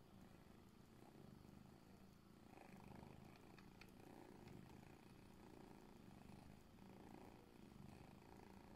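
Faint, steady cat purring during nursing, swelling and fading in a slow breath-by-breath rhythm, with a few faint clicks about three to four seconds in.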